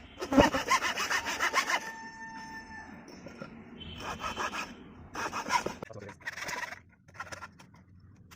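A hacksaw blade sawing through a block of wood, cutting it to length on a marked line. It saws in a fast run of strokes for the first two seconds, pauses briefly, then goes on in short separate bursts of strokes.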